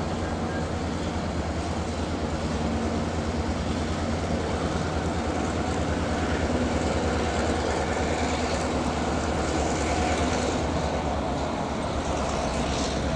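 A Triple Crown RoadRailer train passing, its trailers riding on steel-wheeled rail bogies: a steady noise of wheels rolling on the rails, swelling slightly in the middle.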